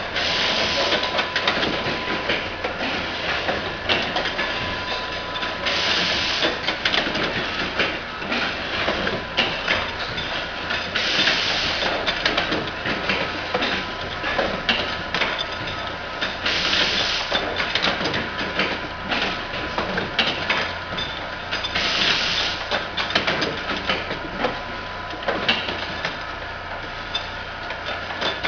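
Insulin unibody syringe assembly machine running: a continuous busy rattle and clicking of parts and actuators, over a steady faint tone. A short burst of hiss, typical of compressed air, comes about every five and a half seconds.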